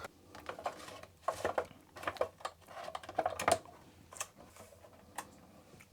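Irregular clicks and knocks of hands handling equipment and plugging in connectors on a workbench, busier in the first few seconds and then sparse.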